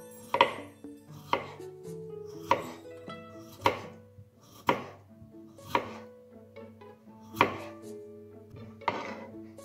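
Knife slicing through raw peeled potatoes and hitting a wooden cutting board: eight cuts, about one a second, over soft background music.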